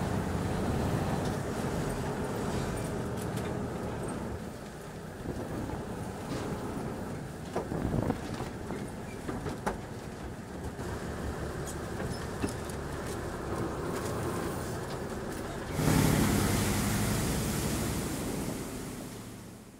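Canal boat's engine running steadily, with a few sharp knocks and clatters partway through. About 16 seconds in, it turns suddenly louder with rushing, churning water as a boat pulls away from the pier, then fades out at the very end.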